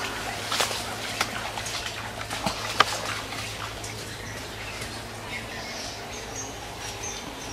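Birds chirping over scattered rustles and light splashes of footsteps wading out of shallow pond water and through leafy undergrowth.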